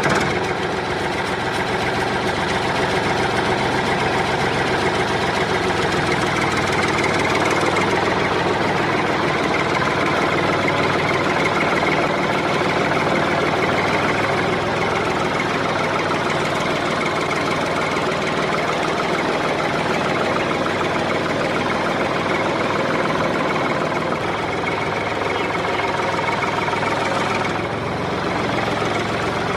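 An engine running steadily with a fast, even firing rhythm; it drops slightly in level near the end.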